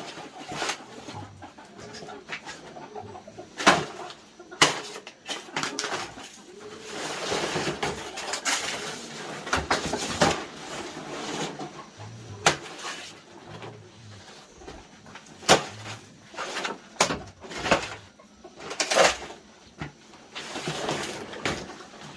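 Irregular sharp knocks and rustling from hands at work, with a dove cooing.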